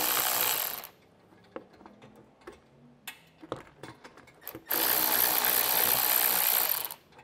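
Cordless power tool with a socket spinning out the 8 mm screws that hold a plastic rock guard. It runs in two steady bursts, the first stopping about a second in and the second running from about four and a half seconds to seven, with small clicks and knocks between.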